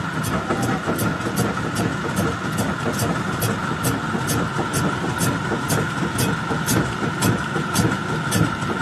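Rock crusher running: a steady mechanical din with a constant whine and a light click repeating about twice a second.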